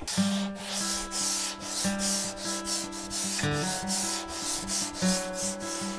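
Sanding strokes on a surfboard: a steady hiss broken by short gaps a few times a second. Under it runs background music of sustained notes.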